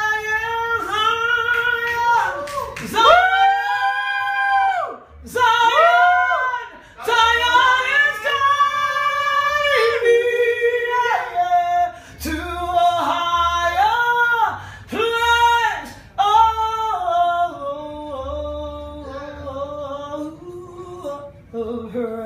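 A woman sings a worship song unaccompanied, holding long notes that rise and fall between short breaths. Her phrases grow softer near the end.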